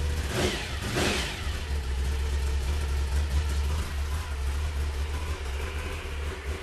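Rebuilt Chevrolet 355 small-block V8 with a big solid-lifter camshaft and twin carburetors on a tunnel ram, just started and running on an engine stand. The throttle is blipped twice, about half a second and a second in, then it settles to a steady idle.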